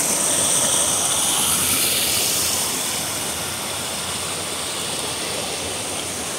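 Small waterfall and stream cascading over boulders: steady rushing water, a little louder in the first couple of seconds.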